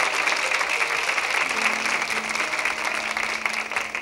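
Studio audience applauding, with soft held orchestra notes playing underneath.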